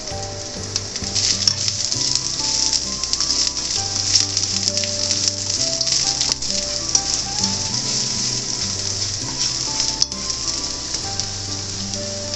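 Carrot sticks sizzling in hot oil as they are stir-fried in a frying pan, a steady frying hiss.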